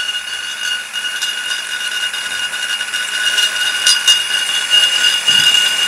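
Flexible-shaft rotary tool spinning a small burr against the aluminium Simson engine case, grinding it rough. A steady high-pitched whine that starts abruptly, with scratchy cutting noise over it.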